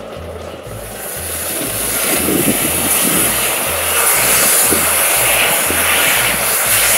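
Steam-driven circular sawmill running: a loud, steady whir and hiss that sets in about a second in and swells over the next couple of seconds, then holds.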